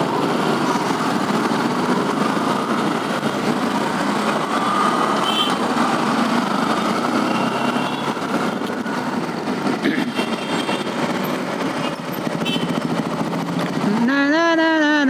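Motorcycle engine running in slow city traffic, a steady noisy rush. Near the end a man's voice comes in, humming a held, wavering tune.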